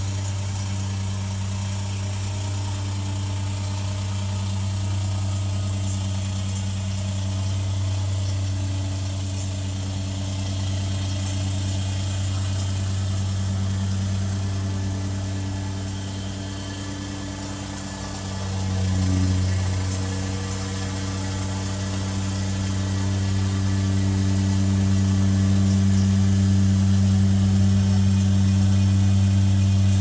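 Vehicle engine idling steadily at a standstill, a low even hum. It swells briefly about two-thirds of the way through and runs a little louder near the end.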